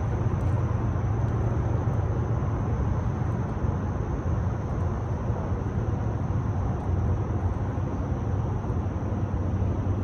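A steady low rumble, like a motor running, with a hiss of noise over it and no clear changes.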